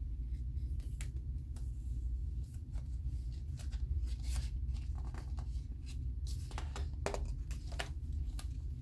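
Light rustling and scattered clicks of something being handled, growing busier about halfway through, over a low steady hum.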